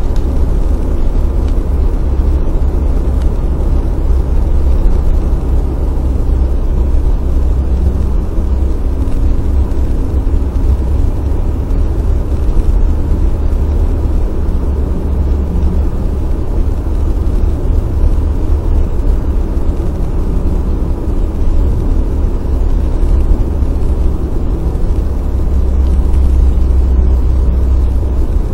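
Steady low road rumble of a car driving at highway speed, heard from inside the cabin: tyre and engine noise with no sudden events.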